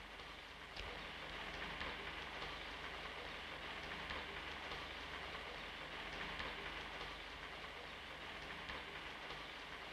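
Steady low hiss with faint scattered crackle and a thin background hum, the surface noise of an old optical film soundtrack.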